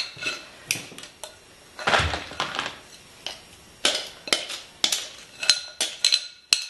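A utensil scraping and knocking against a glass mixing bowl as sticky coated pecans are stirred and then scraped out onto a dehydrator tray, a series of irregular clinks and scrapes. Several clinks in the second half ring briefly like struck glass.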